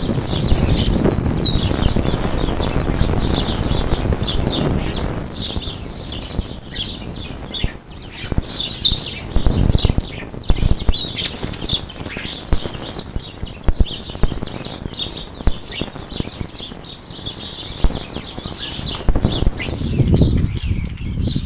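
Common starlings at a bird bath, wings flapping and splashing in the water, with high whistles and chirps, several sliding down in pitch, near the start and again in a cluster about 8 to 13 seconds in.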